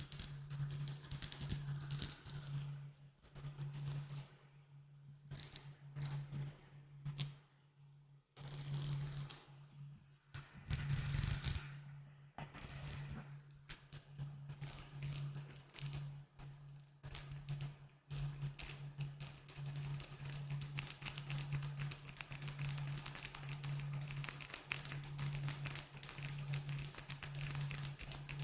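Rapid tapping on glass bottles, ASMR-style, in quick clusters with short pauses, then turning into dense, continuous fast tapping about two-thirds of the way through.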